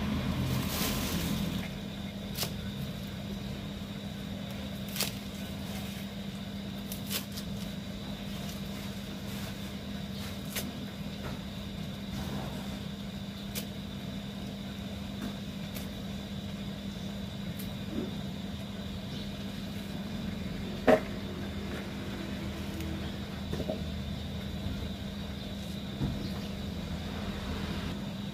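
A cleaver knocks on a wooden chopping block every few seconds as spring onions are cut, with the loudest strike about two-thirds of the way through. A steady low hum runs underneath.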